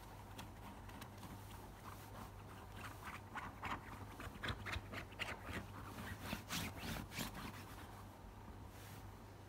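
Fingers scratching and rubbing on a fleece blanket while playing with kittens: a run of short, faint scratches through the middle, over a low steady hum.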